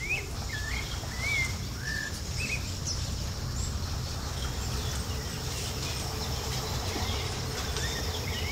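Birds chirping in short whistled notes, several in the first few seconds and more near the end, over a steady high insect hum and a low background rumble.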